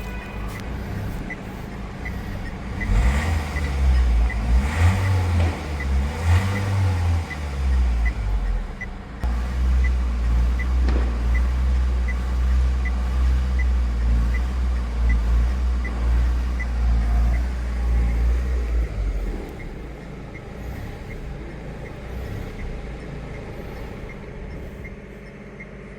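Mahindra Marazzo's 1.5-litre four-cylinder common-rail diesel engine starting up, revved three times, then running steadily before its sound drops away about 19 seconds in. It is a test run after the engine-light code was cleared, on an engine with a fuel-pressure fault that the mechanic then blames on the high-pressure pump.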